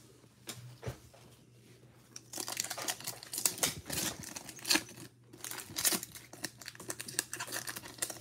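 A foil trading-card pack being torn open and crinkled by hand, with a run of crackling and tearing from about two seconds in.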